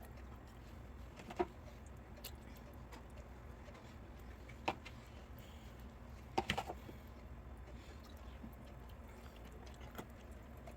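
Steady low room hum with a few sharp knocks and clicks: one about a second and a half in, one near the middle, and a quick run of three or four about two-thirds through.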